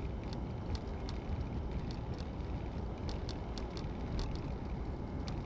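Steady low rumble of a car being driven, heard inside the cabin: engine and tyre noise.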